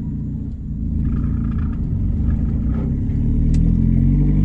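Engine and road drone of a Volkswagen Saveiro pickup heard from inside the cab while driving, a steady low rumble whose pitch rises slightly in the last second or so as the engine picks up revs.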